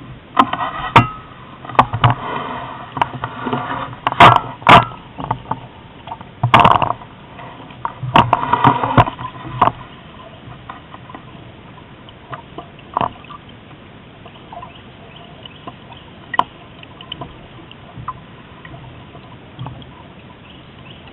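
Water splashing and slapping against the hull of a small sailboat under way, with sharp knocks; busy and loud for about the first ten seconds, then settling to a low wash of water with an occasional knock.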